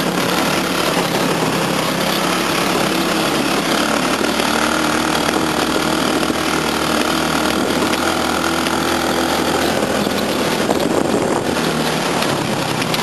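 Go-kart's 10 hp engine running steadily while the kart drives, heard close up from on board, its pitch rising and falling a little with the throttle.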